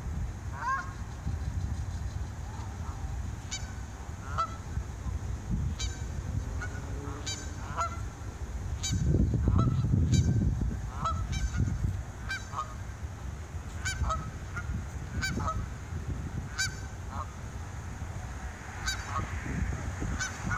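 Flock of Canada geese honking, short calls coming irregularly, often one to two seconds apart, over a low rumble that swells about nine seconds in.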